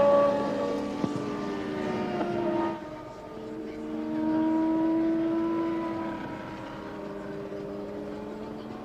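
Formula One race cars' high-revving engines passing at speed: several engine notes fall in pitch as they go by, then fresh notes climb as cars accelerate. Loudest at the start, dropping sharply about three seconds in, and swelling again around four to five seconds.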